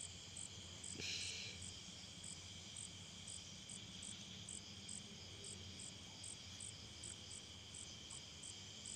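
Night insects, crickets among them, trilling steadily, with a short high chirp repeating about twice a second. There is a brief soft noise about a second in.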